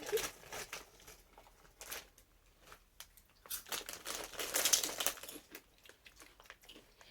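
Potato chip bag crinkling and rustling: scattered short crackles, then a longer burst of rustling about three and a half seconds in.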